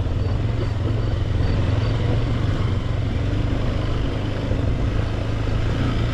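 Motorcycle engine running steadily while riding along a dirt road, heard from the rider's seat: a constant low hum with road and wind noise over it.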